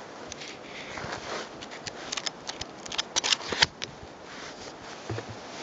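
Paperback book being handled and shut: paper pages rustling and crackling in a run of short, irregular, crisp clicks.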